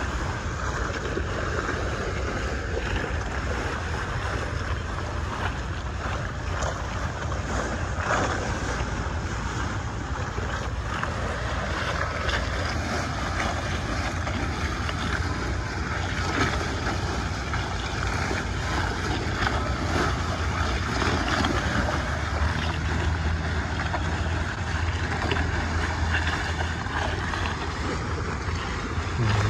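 Sailboat under sail through light chop: a steady wash of water along the hull and wind buffeting the microphone.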